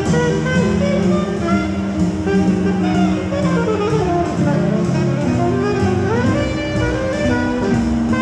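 Jazz music playing: a melody line over a moving bass and a steady beat, with a quick rising run about six seconds in.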